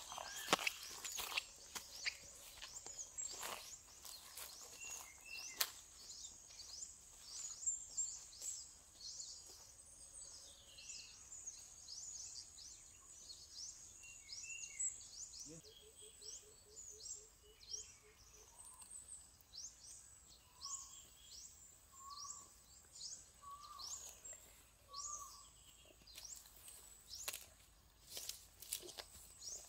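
Birds calling in the countryside: many high, thin chirps that slide downward, repeating throughout. A buzzy trill comes about halfway through, followed by a series of short, lower whistled notes. Footsteps in grass are heard near the start and near the end.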